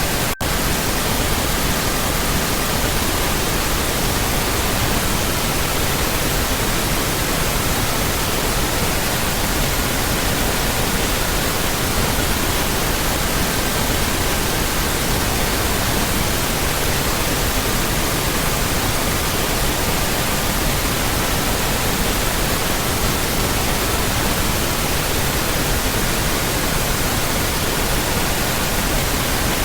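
Steady synthetic pink noise hiss, with faint pure tones in the 1200–1555 Hz range (1200, 1320, 1440, 1555 Hz) underneath that shift from one pitch to another every few seconds. There is a momentary dropout just after the start.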